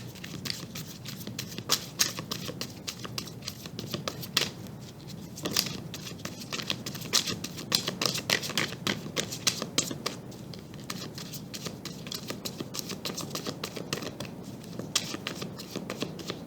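Tarot deck being shuffled by hand: cards flicking and slapping against each other in many quick, irregular clicks, with a few louder snaps.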